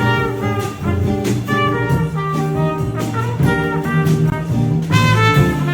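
Live jazz: a trumpet playing a melody over a bass line and drums with regular cymbal strokes.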